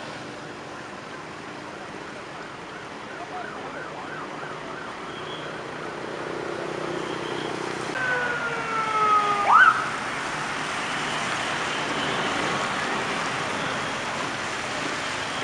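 Ambulance siren: a faint wavering wail at first, then a loud siren tone sliding down and snapping sharply back up about nine seconds in as an ambulance van passes close. After that comes the steady rush of the van's engine and tyres on the wet road.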